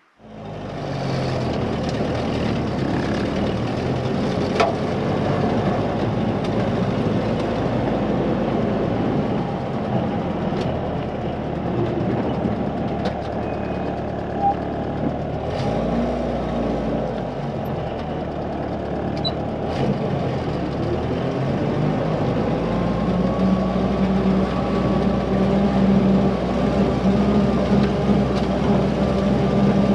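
M151 military jeep's four-cylinder engine running while the jeep is driven, mixed with road noise and a few sharp knocks. The engine note grows a little louder and steadier past the two-thirds mark.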